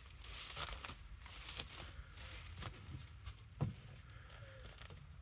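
Footsteps crunching over dry ground and brush, about one step a second, over a low rumble of wind on the microphone.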